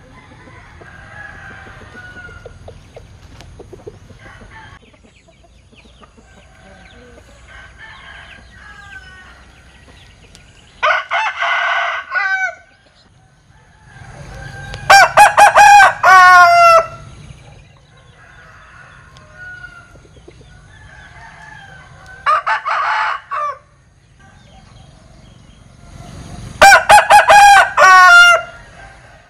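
Linh Kê rooster crowing twice, each crow a loud, choppy run of short broken-up notes, an unusual crow for a rooster. A shorter call comes a few seconds before each crow, and quieter chicken calls sound in between.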